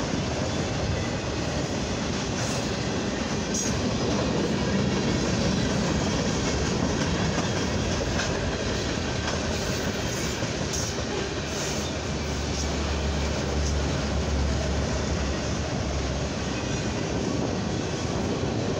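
Norfolk Southern freight cars, autoracks and covered hoppers, rolling past close by: a steady rumble of steel wheels on rail.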